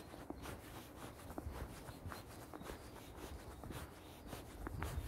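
Faint footsteps crunching on packed snow at a walking pace, about two steps a second, with a low rumble coming in near the end.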